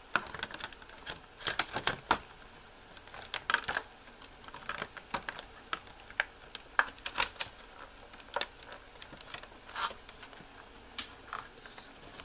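Irregular light clicks and clacks, some in quick little clusters, with quieter stretches between.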